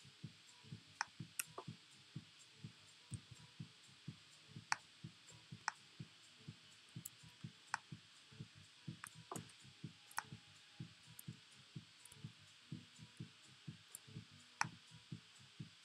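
Faint, irregular soft thumps several times a second, with a sharp click every second or so: computer mouse and keyboard being worked on a desk.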